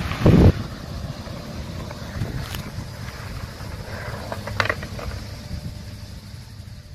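Low rumble of wind on the microphone, with a strong gust just after the start and a couple of sharp clacks later on.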